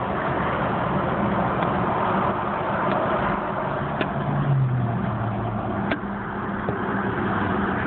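Car driving at highway speed, heard from inside the cabin: steady road and wind noise over a low engine hum, with the engine note swelling briefly about four to five seconds in and a few light clicks.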